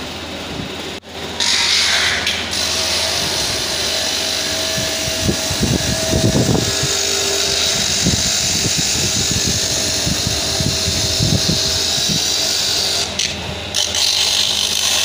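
Dental lab bench lathe running with a mounted stone, grinding excess acrylic off a denture base plate: a steady motor whine with uneven, rough grinding as the acrylic is pressed against the spinning stone.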